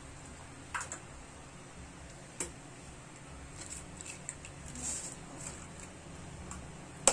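Raw eggs being cracked into a bowl: a few sharp clicks of eggshell breaking, the loudest near the end, with faint handling ticks as the shell is pulled apart. A low steady hum runs underneath.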